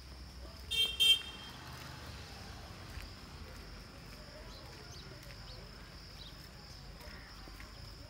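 A vehicle horn sounding two short toots in quick succession about a second in, over a faint steady high-pitched hiss of outdoor background.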